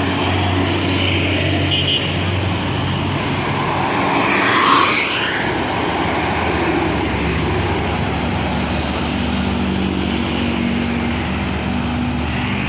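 Roadside traffic with the steady low drone of a heavy vehicle engine, such as a passing tour bus. About four to five seconds in, a brief louder, higher sound comes as a vehicle goes by close.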